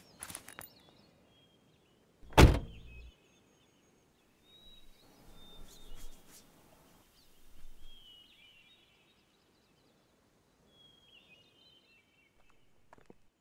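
An SUV door slamming shut once, a couple of seconds in: a single heavy thunk, the loudest sound. Birds chirp now and then in short calls.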